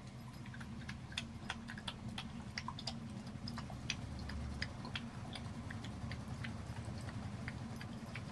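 A pet eating from a bowl: irregular light clicks and smacks, a few a second, over a low steady hum.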